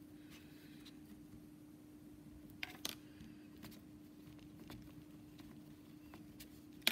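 Fingers pressing soft modelling clay down onto a paper mat: a few faint taps, two close together about three seconds in and a sharper one at the end, over a steady low hum.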